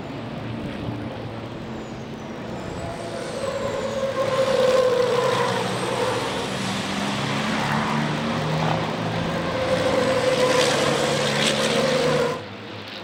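Race trucks' diesel engines running hard as a MAN and a Freightliner pass close together through the corners. The sound swells as they go by, twice, then drops off sharply near the end.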